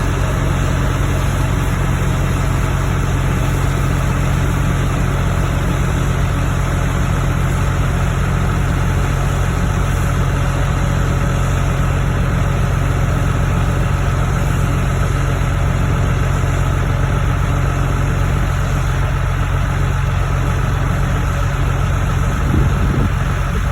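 Combine harvester running at a steady pace while cutting wheat: a constant, unchanging low engine drone.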